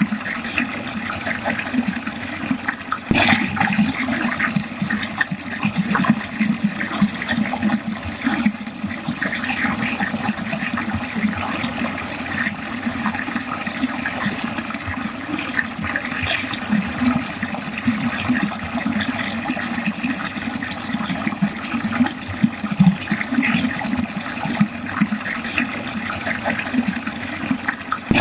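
Water running steadily into a drain, a continuous gurgling flow, with one brief sharper sound about three seconds in.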